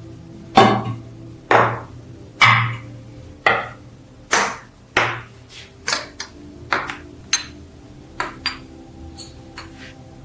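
Repeated sharp metal-on-metal taps with a short ring, about one a second at first, then lighter and closer together toward the end.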